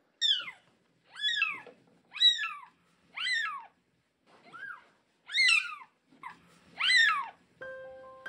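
A kitten about ten days old crying with high, thin meows, each rising and then falling in pitch, about one a second, seven in all.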